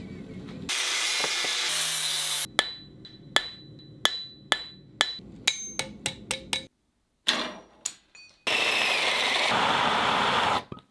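Blacksmith's hammer striking steel on an anvil: about a dozen ringing blows coming faster and faster. Before and after them come stretches of loud steady rushing noise from a power tool, broken by sudden cuts to silence.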